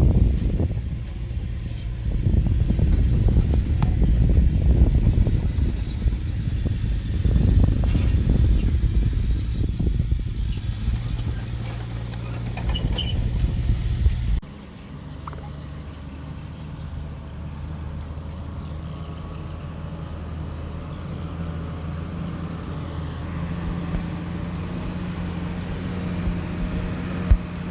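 Diesel engine of earthmoving machinery working hard, loud and rumbling with scattered metallic knocks and clanks. About halfway through the sound cuts abruptly to a quieter, steady engine running at an even pitch.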